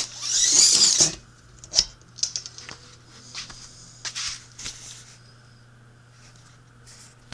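Things being moved about on a workbench: a scraping rush lasting about a second, then scattered clicks and taps.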